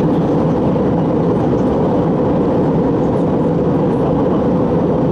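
Steady cabin noise inside an Airbus A321 airliner: engine and airflow noise, a constant low, dense rush with a steady hum running through it.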